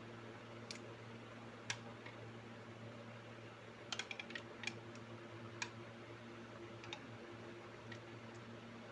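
Scattered light clicks and taps as kittens play and paw on a fabric bag with straps and a buckle, with a quick run of clicks about four seconds in, over a steady low hum.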